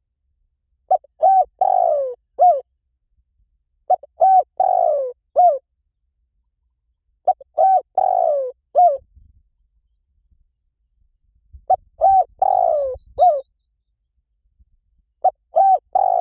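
Spotted dove cooing. A four-note phrase comes five times, roughly every three and a half seconds. The third note of each phrase is longer and falls in pitch.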